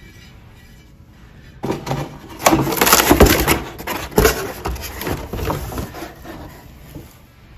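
Cardboard box and packaging handled: rustling, scraping and knocks as an enamelled cast-iron pot is pulled out of its box. The noise starts about two seconds in, with the loudest knocks soon after, and eases off near the end.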